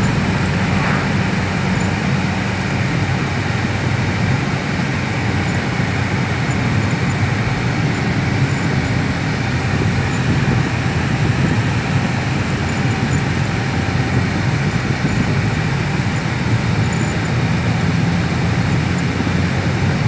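Steady road and wind noise inside a car driving at highway speed.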